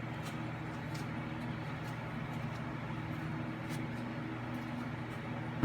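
A motor's steady hum, with a few faint clicks and one sharp knock at the very end.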